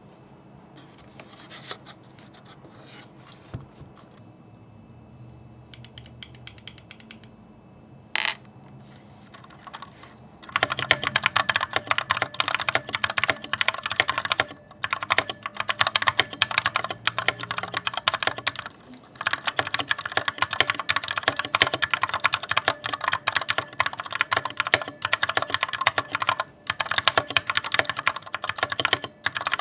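Corsair K65 RGB Mini mechanical keyboard being typed on rapidly, a fast run of keystroke clicks that begins about a third of the way in and stops briefly a few times. Before that there are only a few faint scattered clicks and one short sharp sound.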